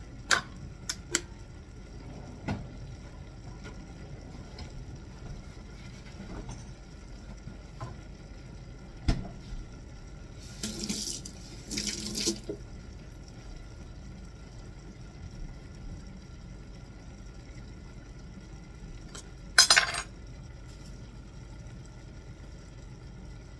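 Kitchen work at the counter over a steady low hum: a few sharp clicks and knocks of utensils and dishes, two short rushing bursts like running water around ten to twelve seconds in, and a louder brief rush near twenty seconds.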